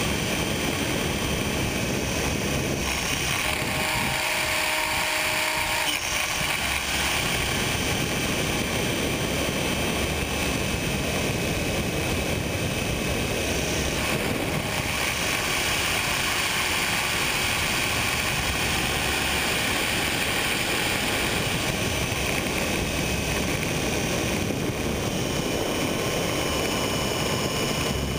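Radio-controlled helicopter in flight, heard from a camera mounted on it: steady motor and rotor noise with a high whine, mixed with wind rush.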